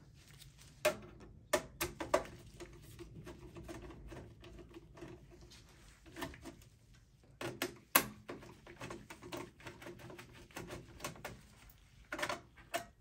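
Phillips screwdriver taking screws out of a small sheet-metal plate in a desktop PC's steel case, then the plate being lifted off: scattered sharp metal clicks and small clinks, with one louder knock a little past halfway and a short cluster of clicks near the end.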